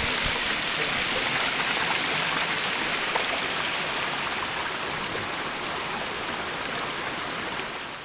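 A small rocky stream rushing and splashing steadily over stones, slowly fading toward the end.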